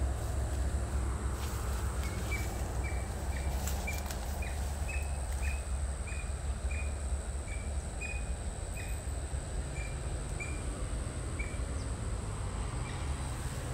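Outdoor ambience with a steady low rumble and a thin, steady high tone. From about two seconds in until near the end, a bird calls a run of short, high notes, about two a second.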